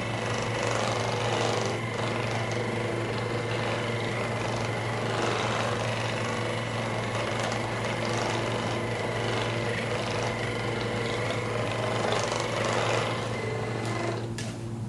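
Percussive massage gun running steadily against the body, a constant mechanical buzz that stops near the end.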